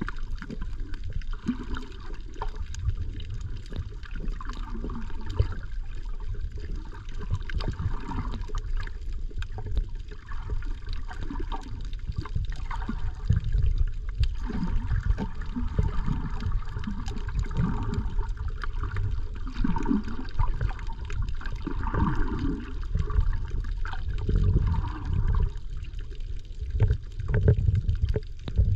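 Muffled underwater water noise picked up by a submerged camera: a continuous low rumble and sloshing that swells and fades unevenly, with scattered faint clicks.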